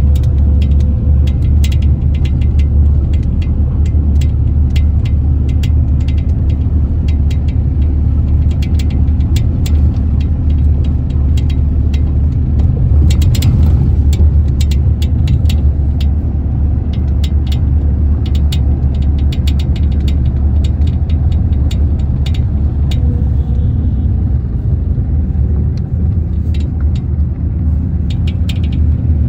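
Steady low rumble of a moving road vehicle heard from on board: engine and road noise. Frequent light rattles and clicks sound over it, thickest about halfway through.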